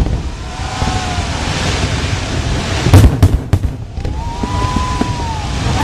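Fireworks going off: a crackling hiss, then one loud bang about three seconds in, followed quickly by a few smaller cracks.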